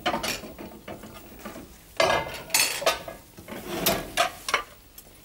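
Kitchen clatter of dishes and utensils being handled on a counter: a series of knocks and clinks, the loudest run about two seconds in.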